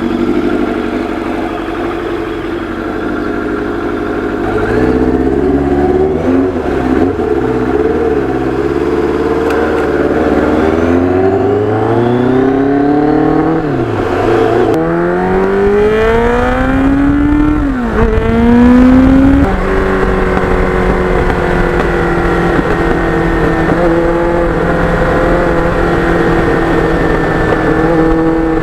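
1989 Kawasaki GPX750R's inline-four engine running under way, pulling up through the gears: its pitch climbs, drops sharply at an upshift about fourteen seconds in and again at about eighteen seconds, then settles into a steady cruise.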